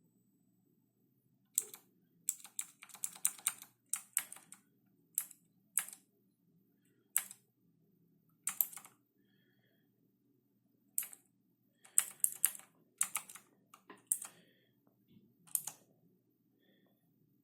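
Keys of a 7pin PK-900 mechanical keyboard being typed on: sharp key clicks in irregular runs, with short pauses between them.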